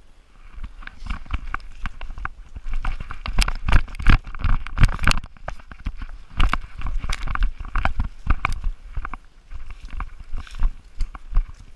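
Chocolate Labrador running over forest leaf litter, heard from a camera strapped to its body: a quick, uneven run of paw thuds, knocks and leaf crunching.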